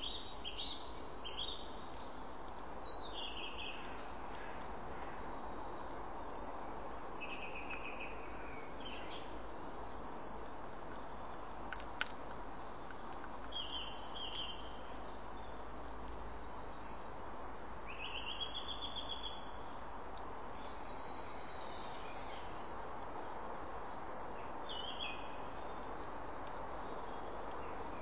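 Small birds singing in short chirping phrases and trills every few seconds over a steady background hiss, with a single sharp click about twelve seconds in.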